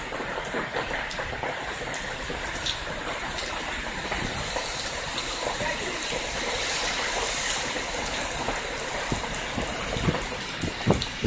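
Heavy rain pouring down on a street and parked cars: a steady, dense hiss, with a few sharper knocks near the end.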